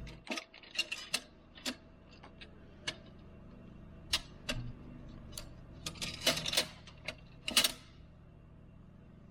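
Scattered sharp metallic clicks and clinks from hand tools and parts being handled, irregular at first and bunched into a quick run about six to eight seconds in.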